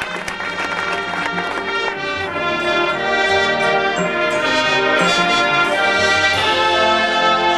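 Marching band brass playing held chords that swell louder about two seconds in, after a few sharp drum strikes at the start.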